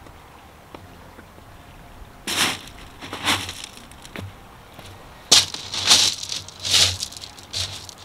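Footsteps crunching on beach pebbles, about eight steps starting about two seconds in, over a faint steady hiss.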